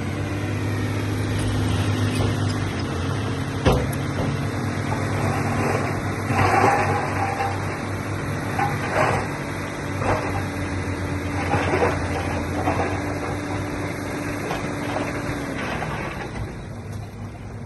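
Heavy diesel engine of earthmoving machinery running steadily, with a sharp clank about four seconds in and several short scraping, rattling bursts after it. The engine's higher note drops away near the end.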